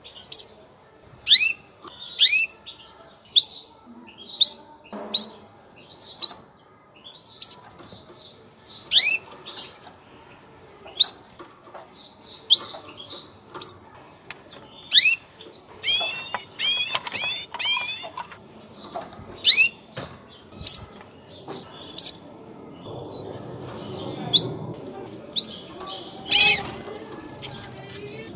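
Female canary giving its mating call: short, sharp chirps that sweep down in pitch, repeated about once a second, some in quick runs of several notes.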